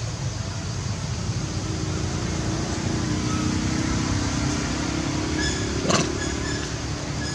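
A motor vehicle engine running in the background as a steady rumble, its note rising slowly over several seconds, with a single sharp click about six seconds in.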